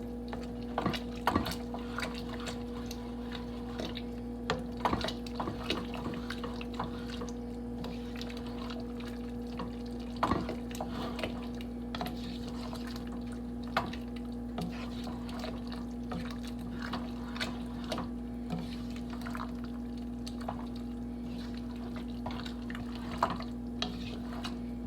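A spoon stirring a thick chicken vegetable stew, thickened with cornstarch, in a pot. The stirring gives irregular wet squelches and sloshes, with occasional clicks and knocks of the spoon against the pot, over a steady low hum.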